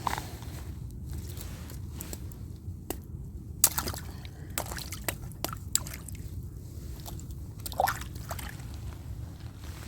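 Footsteps on wet, soggy ground: irregular squelching steps and clicks, the sharpest about three and a half seconds in, with a short squeak near eight seconds.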